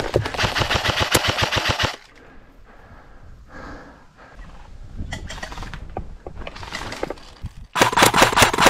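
Airsoft electric rifle firing on full auto: a burst of rapid, evenly spaced shots lasting about two seconds at the start, then after a pause a second burst near the end.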